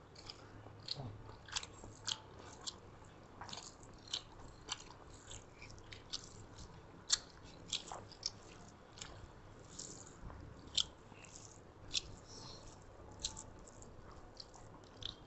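Quiet chewing of rice, chicken and pork eaten by hand, with many irregular short wet mouth clicks, a few of them louder.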